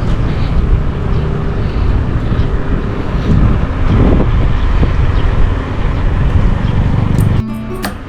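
Wind buffeting a camera microphone, with road rumble, while riding a mountain bike: a loud, unsteady low rumble. Near the end it cuts off abruptly and guitar music comes in.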